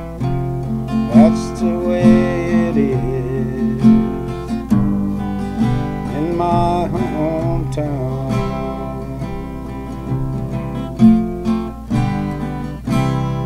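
Acoustic guitar strummed in an instrumental outro, chords struck every second or so, with a last chord struck near the end and left ringing.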